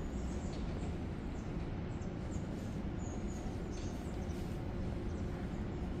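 Outdoor woodland ambience: a steady low background rumble with faint, brief bird chirps now and then.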